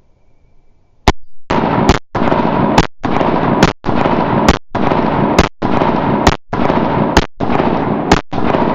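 Sig Sauer P365 compact pistol fired in a steady string of nine shots, about one a second, starting about a second in.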